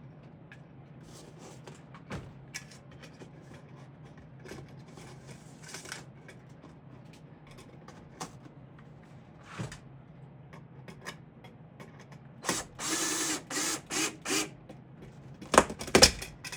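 Hand work on installation hardware: scattered small clicks and taps over a low steady hum. About two-thirds through comes a quick series of short mechanical bursts, then two loud knocks near the end.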